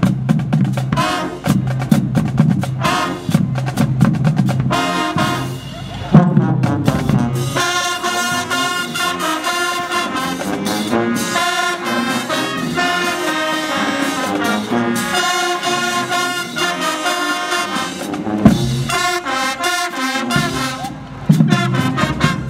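High school marching band playing, with brass (trumpets, trombones, sousaphones) and drums. A strong low beat leads for the first few seconds, then held brass chords fill out the rest.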